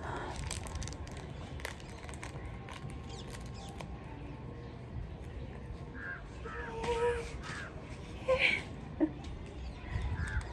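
Crows cawing in short runs of three or four calls, about six seconds in and again near the end, with a single louder call between.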